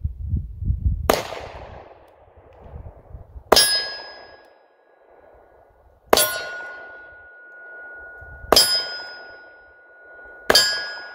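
Five shots from a Taurus 905 snub-nosed 9mm revolver, fired one at a time about two to two and a half seconds apart. After each of the last four, a struck steel target rings out with a clear metallic tone that lingers.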